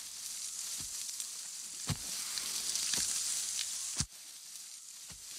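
Film sound effects for a large creature's slow footsteps on a forest floor: a few sharp clicks roughly a second apart over an even high hiss. The hiss is loudest in the middle and drops after about four seconds.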